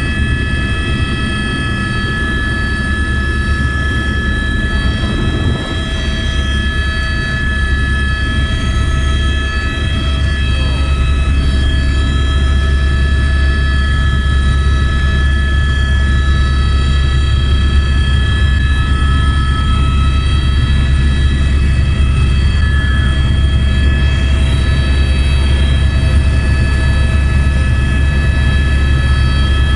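Helicopter turbine and main rotor heard from inside the cabin during take-off and climb. A deep, steady rotor beat runs under several high, steady turbine whine tones. It grows louder from about six seconds in as the helicopter lifts off, then holds steady in the climb.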